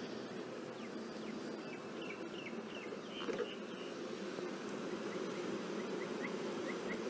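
Honey bees from an open hive buzzing in a steady hum. Short high chirps come in bursts, and there is a single light knock about three seconds in.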